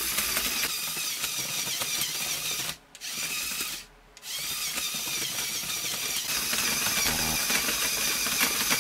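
Small electric motor driving a Lego Technic vehicle's plastic gear train, a steady whirring and gear chatter. It cuts out abruptly twice, briefly, about three and four seconds in.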